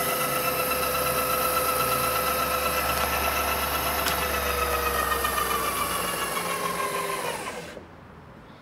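Southwestern Trak DPM mill's spindle running with a steady whine, then switched off about seven seconds in, its pitch sagging as it winds down to a stop. A single click about four seconds in.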